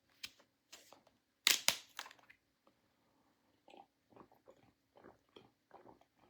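A plastic drink bottle is handled with a few clicks and a louder crackle, then comes a run of soft swallowing gulps as someone drinks.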